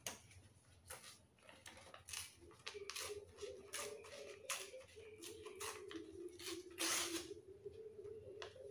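Paper being handled, torn and twisted into a thin stick by hand: a quick run of short rustles and crinkles, with a louder tearing rasp about two-thirds of the way in. A faint wavering hum runs underneath from about a third of the way in.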